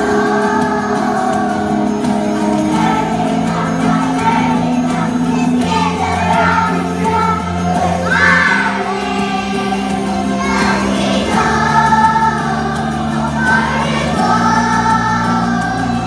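Background music: a song with singing over held bass notes that change every two or three seconds.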